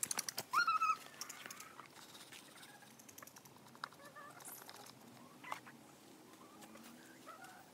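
Backyard chickens clucking: a few short pitched calls, loudest about half a second in, then fainter scattered calls, with a few sharp clicks at the very start.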